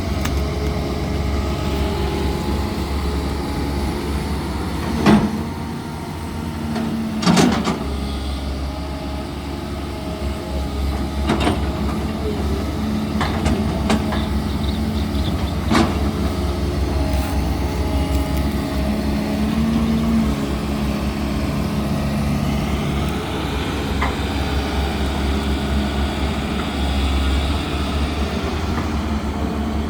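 Diesel engine of a CAT hydraulic excavator running steadily under working load. Several sharp knocks stand out, the loudest about five and seven seconds in, and a higher whine rises for a few seconds near the end.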